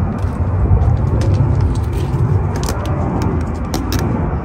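Footsteps climbing the steel steps into a train car: scattered clicks and knocks over a steady low rumble.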